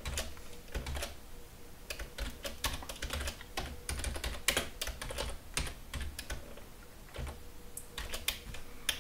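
Keystrokes on a computer keyboard: unhurried, irregular typing of a short line, a few key clicks a second, with a brief pause about six seconds in.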